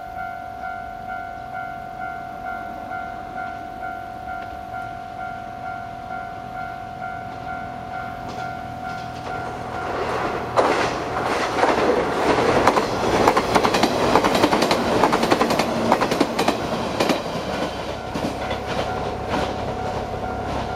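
Japanese level-crossing warning bell ringing in a steady, evenly repeating ding. About ten seconds in, the limited express Kinosaki electric train runs through the crossing, its wheels clattering over the rail joints, loud at first and then easing off while the bell keeps ringing.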